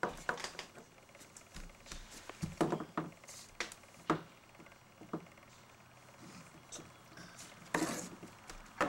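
Adult high-heeled shoes knocking and scraping on painted wooden porch boards as a toddler shuffles in them, an uneven series of clunks with the loudest about four and eight seconds in.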